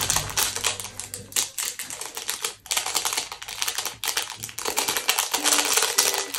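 A small paper sachet being crinkled and worked open by hand close to the microphone: a dense, irregular run of crisp crackles and rustles.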